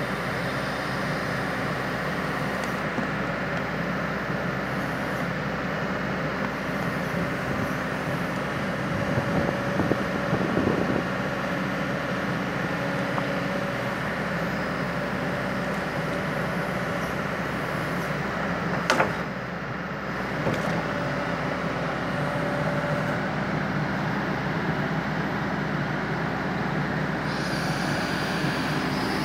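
Kobelco excavator's diesel engine running steadily at idle. A short rattle of metal knocks comes about ten seconds in, and a single sharp click just before twenty seconds.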